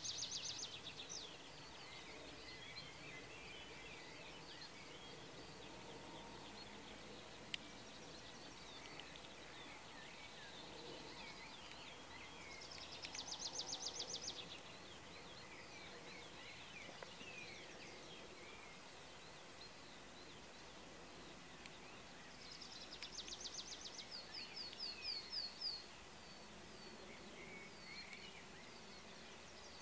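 Songbirds singing faintly over quiet open-country ambience: a steady scatter of short high chirps, with three louder rapid trilled songs, one near the start, one about halfway, and a longer one near the end. A single sharp click sounds about seven seconds in.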